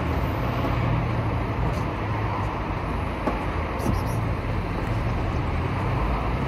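Steady street traffic noise: a continuous low rumble of cars running and passing.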